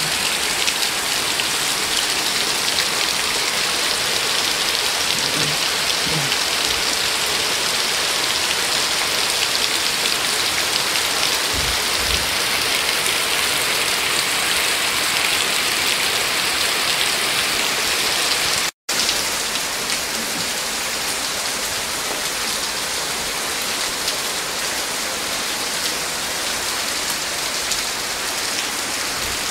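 Rain falling steadily on muddy, puddled ground, an even dense hiss. The sound cuts out for a split second about two-thirds of the way through, then goes on slightly quieter.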